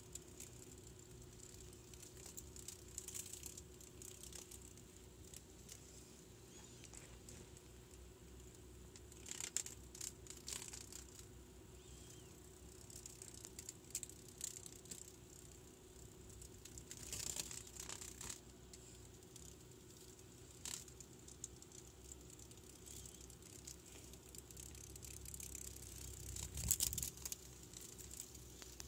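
Faint, intermittent rustling and crinkling handling noise, with a few louder bouts of crackle spread through, over a low steady hum.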